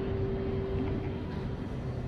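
Street background: a steady low rumble with a steady hum over it that fades out a little over a second in.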